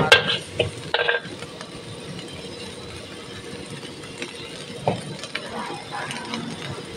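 A metal spatula scraping and clanking against a wok as fried rice is stir-fried. A few sharp knocks stand out: one right at the start, one about a second in, and another near five seconds.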